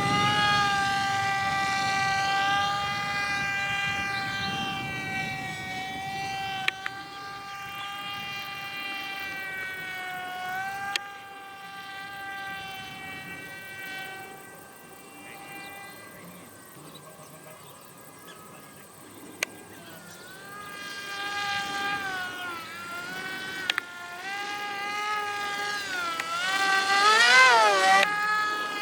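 Electric motor and propeller of a small RC model aircraft in flight: a high, insect-like whine that rises and falls in pitch and loudness as it manoeuvres and passes. It is loudest near the end, with a quick swing up and down in pitch.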